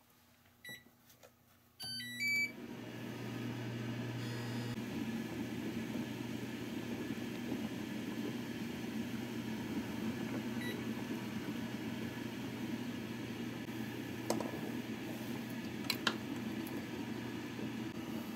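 Induction cooktop beeping as its control buttons are pressed, a short run of stepped beeps about two seconds in, then its coil starts a steady hum under the bubbling of a pot of water at a rolling boil. A few light clicks near the end.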